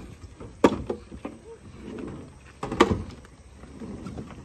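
Firewood logs thrown down onto a pile of logs, with two loud wooden knocks about two seconds apart and lighter clatter between.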